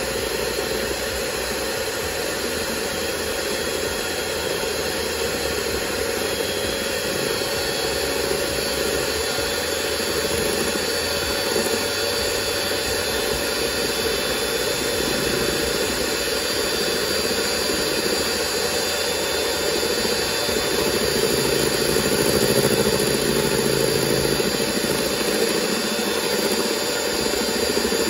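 Electric hand mixer running steadily, its two beaters whipping cream in a stainless steel bowl.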